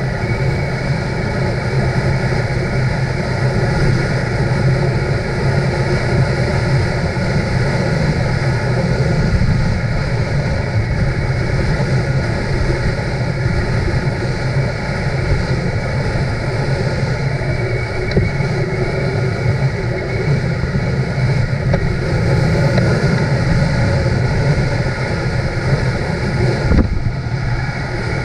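Motorcycle engine running steadily at cruising speed, with wind on the microphone and one knock near the end.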